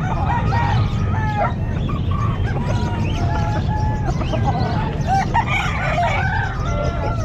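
Several gamefowl roosters crowing over one another, long held calls at different pitches overlapping throughout, over a steady low rumble.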